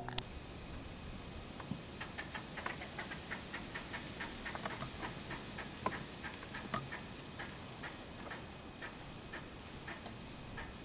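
Rapid, uneven light ticking and clicking, a few clicks a second, over a faint steady outdoor hiss.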